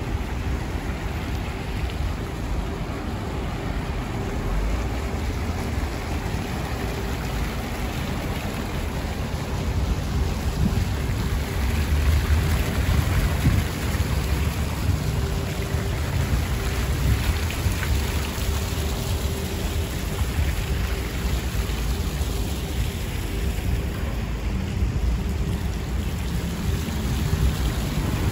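Water splashing from many small fountain jets into a shallow pool, louder around the middle, over a steady low rumble of road traffic.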